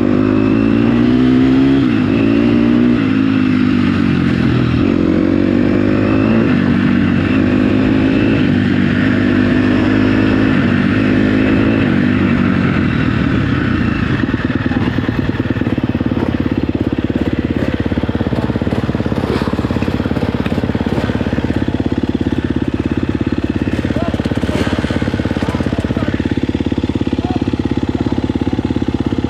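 Dirt bike engine revving up and down repeatedly as the throttle is worked, then settling into a steady, lower note about halfway through.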